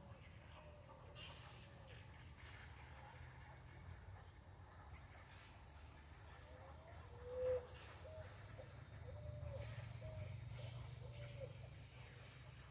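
A steady high-pitched insect buzz that swells a few seconds in. A bird calls in a series of short low notes over it from about halfway through, with one louder note.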